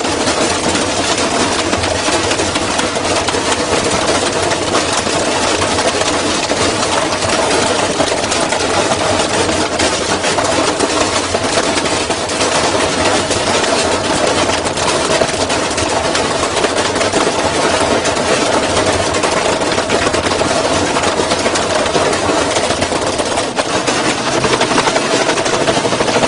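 Washing machine in a hard spin, running loud and steady with a rapid, continuous rattle.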